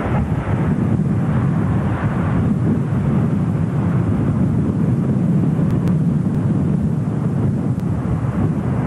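Boeing 707 jet airliner on approach, its engines making a steady low rumble, with wind buffeting the microphone.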